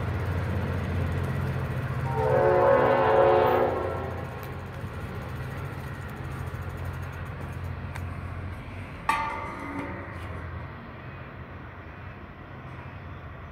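Steady low rumble of a V/Line N-class diesel locomotive hauling its train away from a station, with a horn blast about two seconds in that lasts about two seconds and is the loudest sound. A sharp, shorter sound comes about nine seconds in and fades quickly, and the rumble gets quieter as the train moves off.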